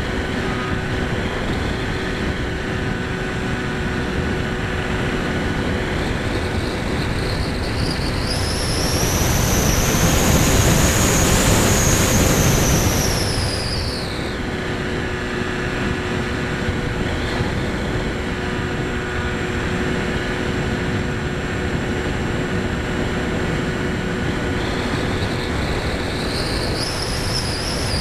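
Electric motor and propeller of an EPP-FPV foam model airplane, heard from on board over a steady rush of air. The motor whine climbs in pitch and gets louder about a third of the way in, holds for a few seconds, then falls back about halfway through, and starts rising again near the end.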